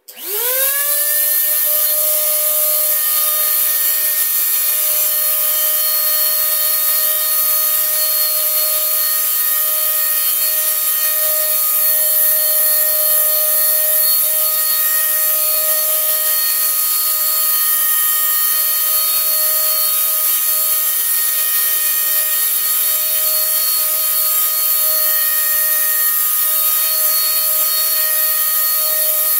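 Electric spray gun switched on: its motor spins up within about a second to a steady high whine and then runs with a strong hiss of air, spraying wood stain.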